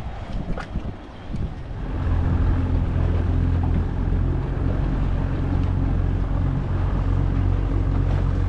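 Boat motor running steadily at low speed, a low even hum that starts about two seconds in, after a couple of knocks and some wind on the microphone.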